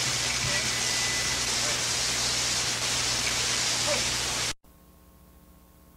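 Heavy hiss and low hum of an old live recording's room sound, with faint voices in the background. It cuts off abruptly about four and a half seconds in, leaving only a faint electrical hum.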